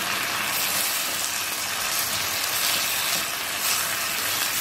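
Diced flank steak and onion sizzling in a hot nonstick skillet as a spatula stirs them, a steady frying hiss.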